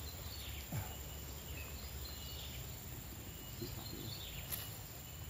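Quiet outdoor background: a steady low rumble with a few faint, short bird calls falling in pitch.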